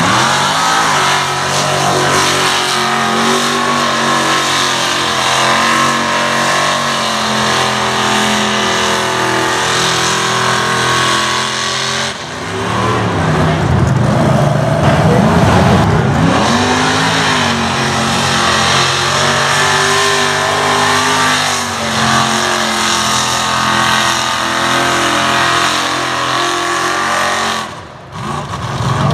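Mud trucks' engines running loud and revving, the pitch climbing and falling with the throttle several times.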